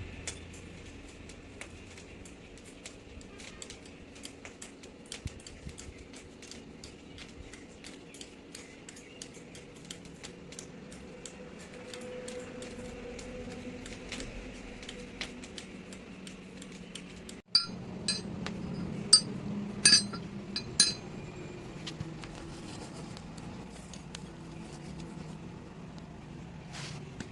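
Light metal clicking and clinking, a few times a second, then after a break a handful of loud metal-on-metal strikes that ring, as when steel parts are hit with a hammer.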